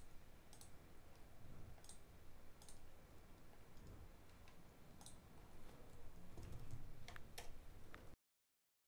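Faint computer mouse clicks and keyboard keystrokes, scattered single clicks with a quick run of them about seven seconds in.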